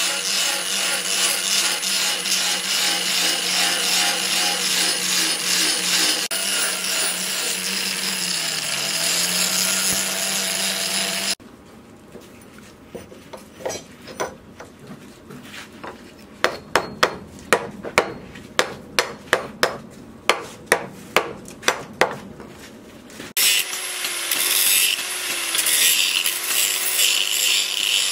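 Angle grinder with an abrasive disc grinding a steel axe head made from leaf spring. Its motor hum sags briefly under load. It stops suddenly for a quieter stretch with a run of sharp taps, then grinding starts again near the end.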